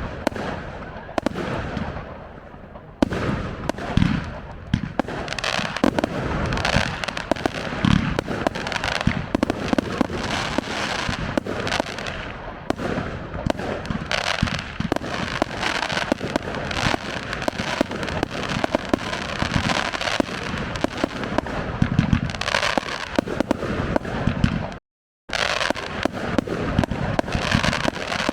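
Fireworks display going off in quick succession: many sharp bangs and crackling salvos, one after another. The sound cuts out completely for a moment about 25 seconds in.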